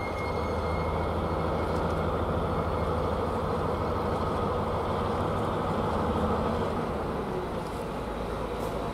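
Diesel locomotive approaching slowly, its engine running with a steady low drone.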